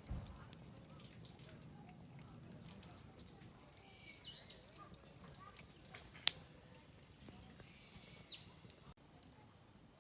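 Wood campfire burning in a Coleman Fire Disc fire pit, crackling faintly with one sharp pop about six seconds in. Two short high calls sound in the background, around four and eight seconds in.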